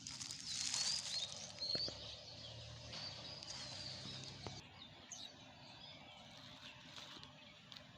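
Small birds chirping in short calls, over a rustling that stops about halfway through, with a few light clicks.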